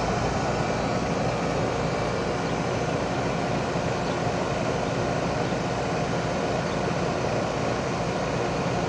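2012 Rheem 4-ton heat pump running steadily in cooling mode: a constant drone of the compressor and condenser fan, with a low hum under it.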